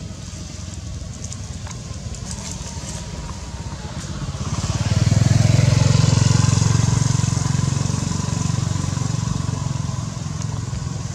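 A motor vehicle passing along the road: its engine hum builds about four seconds in, drops in pitch as it goes by, is loudest a couple of seconds later, then slowly fades away.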